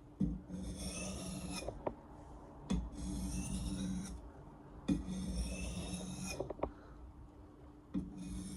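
Steel blade edge being sharpened by hand on an abrasive sharpener: three long rasping strokes and the start of a fourth near the end, each opening with a light knock as the blade is set on the abrasive.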